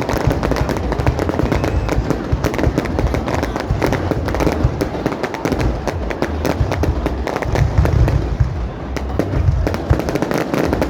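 Aerial fireworks display: a dense, continuous crackle of many small bursts over a steady low rumble of shells going off.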